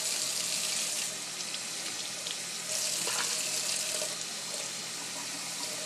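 Kitchen tap running, water pouring into a jar in the sink as it is rinsed out: a steady rush of water, louder at the start and again around the middle.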